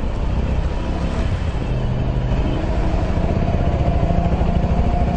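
Two motorcycles riding along at steady speed, engines running and getting slightly louder as they come closer.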